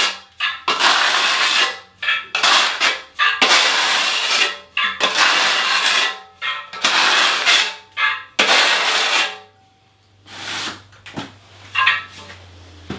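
Trowel scraping thinset mortar across the back of a 12x24 porcelain tile with its flat side (back-buttering): about six long scraping strokes of a second each, stopping about nine seconds in, followed by a few faint light knocks.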